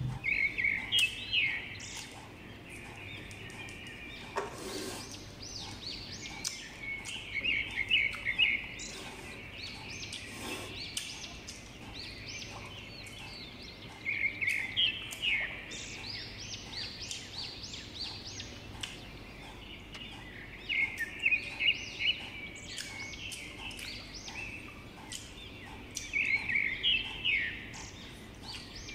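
Chewing of crisp, sour Indian mango slices heard close up: short clusters of crunches about every six seconds, five times.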